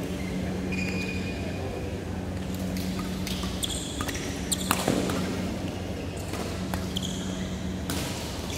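Badminton rally: several sharp racket hits on the shuttlecock in quick succession around four to five seconds in, with short high squeaks of court shoes on the court mat, over a steady low hum of the hall.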